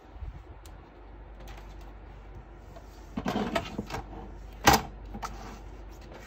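Crafting tools and cardstock handled on a tabletop: a short scraping rustle about three seconds in, then one sharp click as a plastic scoring board and paper trimmer are set down, with a few light taps.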